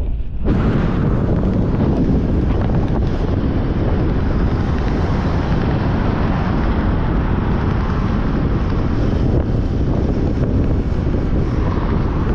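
Loud, steady wind buffeting the microphone, with a deep rumble underneath, as when recording from a moving open vehicle.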